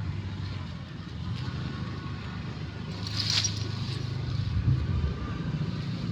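Low, steady rumble with a short rustle of leaves about three seconds in.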